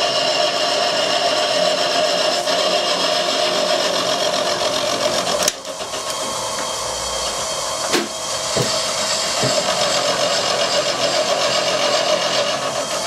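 Vertical milling machine running an end mill along the edge of a cast iron steam-engine base, a steady spindle and cutting noise. About halfway the noise briefly dips with a sharp click, and a second click comes a couple of seconds later.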